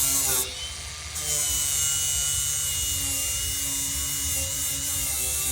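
Handheld grinder running with a steady high whine and a hiss as it grinds a signature into a truck tailgate. It lifts off briefly about half a second in, then resumes about a second in and grinds on.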